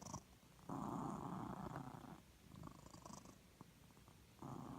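Sleeping cat snoring: a rasping breath about a second and a half long, a fainter breath after it, and another loud one starting near the end.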